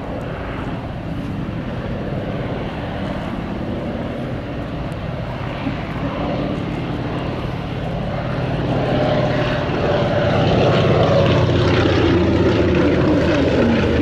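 Antonov An-2 biplane's nine-cylinder radial engine running together with the piston engines of three Aero AT-3 light aircraft in a low formation fly-by. The propeller drone grows louder about nine seconds in as the formation passes, and its pitch sinks near the end.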